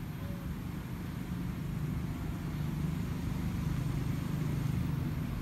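A low, steady engine rumble that grows slightly louder in the second half.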